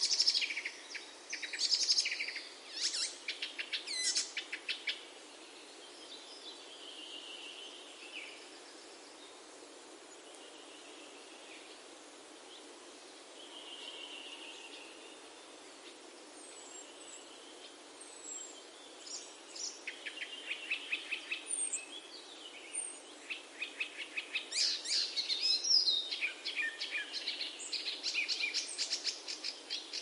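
Small birds chirping and trilling, with rapid runs of repeated high notes. Busy in the first few seconds and again through the second half, sparser and quieter in between.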